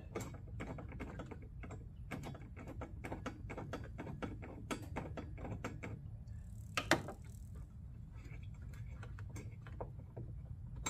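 Irregular light clicking and tapping of the hidden light-bar frame and its screws being worked into place on the van's front grille mount, with one sharper clack about seven seconds in.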